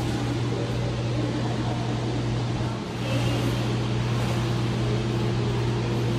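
Steady low drone of a car on the road, running evenly with no sudden events.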